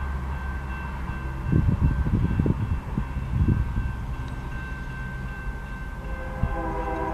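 Railroad grade-crossing bell ringing steadily as the gates come down, with a few low rumbles in the middle. Near the end, the approaching train's lead locomotive, a GE Dash 9-44CW, begins sounding its multi-chime horn.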